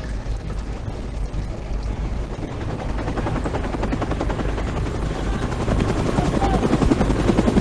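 Helicopter rotor chopping in a fast steady beat, growing louder as it approaches, over a low rumbling drone.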